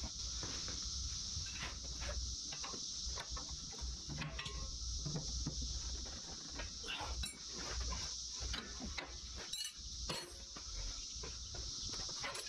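Steady high drone of cicadas, with scattered clinks and knocks of metal hand tools being handled.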